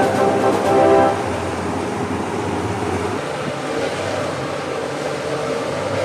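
Music that stops about a second in, followed by a steady low rumble.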